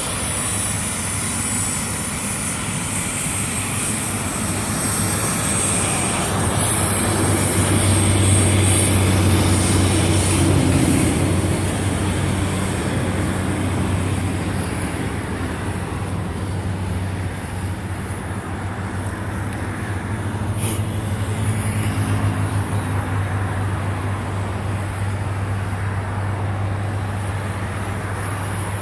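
Jet aircraft engines running during a takeoff: a steady low rumble under a broad roar, with a high whine that fades over the first several seconds. The noise swells about a third of the way in and again later.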